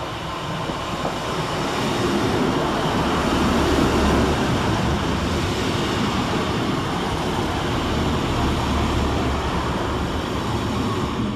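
A pair of coupled Class 150 Sprinter diesel multiple units running into the station: a steady rumble of diesel engines and wheels on rail that builds over the first couple of seconds.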